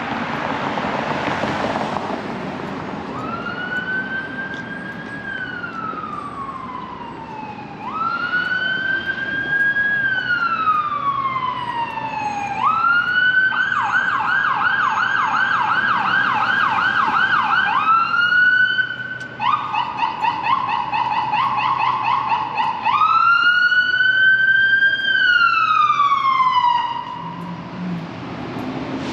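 Emergency vehicle siren sounding in street traffic. It goes through a slow rising-and-falling wail, switches to a rapid yelp partway through, returns briefly to the wail, yelps again, then ends on one last wail.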